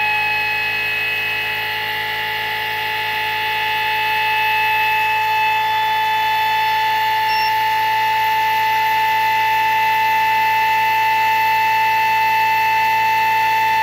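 Homemade pulse motor running on 12 volts, its rotor and pulsed drive coils giving a steady high-pitched whine.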